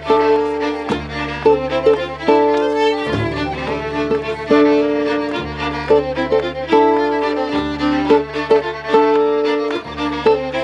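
Two fiddles playing a brisk Celtic tune together over strummed acoustic guitar and double bass, with the bass holding low notes that change every second or two.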